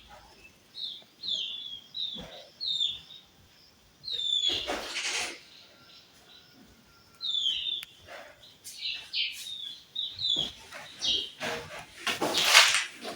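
A bird chirping repeatedly in short, high, falling notes, with pauses between runs of calls. Several louder, noisy rustling or scuffing bursts cut in, the loudest near the end.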